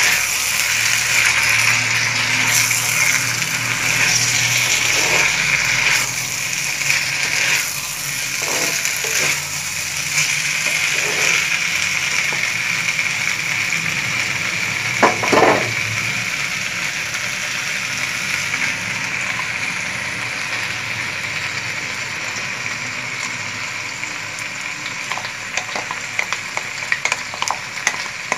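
Mixed vegetables sizzling in hot oil in a wok, stirred with a wooden spatula that scrapes through them now and then. There is one louder stroke about halfway through, and small pops near the end.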